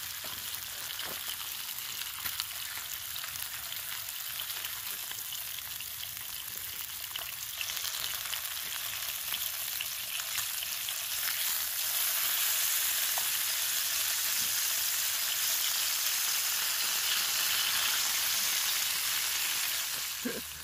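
Bacon sizzling in a small camping frying pan over an alcohol stove, with occasional light clicks of metal tongs turning the strips. The sizzle grows louder in two steps, about a third of the way in and again just past halfway.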